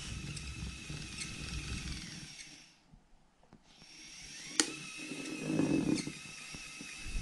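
Small robot's electric wheel motors running with a steady high whine as it drives against a cushion. The whine stops for about a second around three seconds in, then starts again. A sharp click and a brief louder scuffing noise follow near the end.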